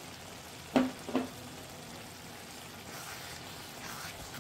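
Tomato and minced-meat sauce simmering and sizzling in a pan while a wooden spoon stirs it, a steady hiss. Two short, louder sounds come about a second in.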